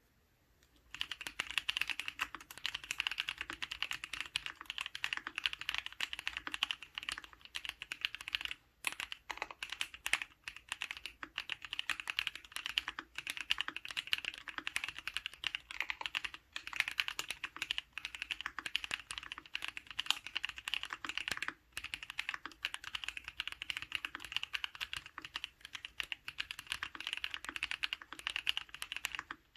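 Continuous fast typing on an Archon FX custom mechanical keyboard: spray-lubed 'paco' switches (NovelKeys Cream housings with Halo stems) in a stainless steel plate, with GMK keycaps and Thinsulate dampening. The typing starts about a second in and runs as a dense stream of clicks, broken by a few brief pauses.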